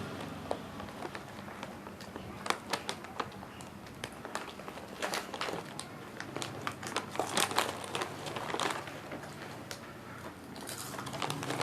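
Close-up eating of a crisp snack: irregular crunching and crackling in clusters, with a steady low hum of the room behind.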